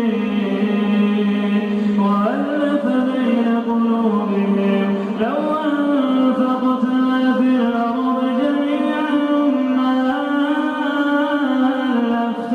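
A man reciting the Quran in melodic chanted recitation, holding long drawn-out notes with sliding ornaments. The pitch rises sharply about two seconds in and again about five seconds in.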